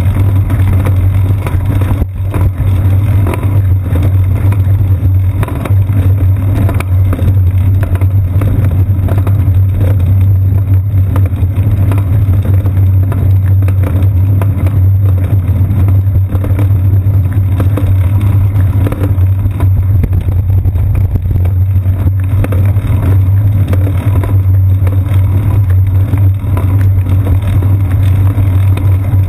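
Loud, steady low rumble of wind and road vibration picked up by a GoPro action camera in its housing on a moving bicycle's seat post, with small knocks as the tyres roll over the concrete path's joints.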